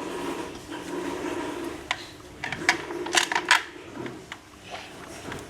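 Metal parts of a washing-machine wheel base clinking and knocking as it is put together by hand, with a quick run of sharp clicks in the middle, over a steady low hum.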